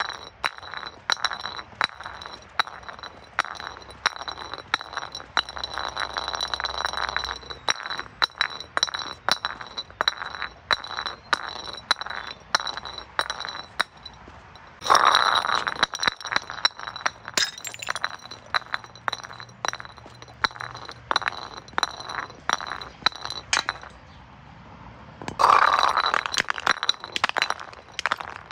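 Glass bottles clinking and knocking together in a rapid, continuous patter, with a high ringing. Two loud crashes of breaking glass come about halfway through and again near the end, each trailing off into scattered tinkling.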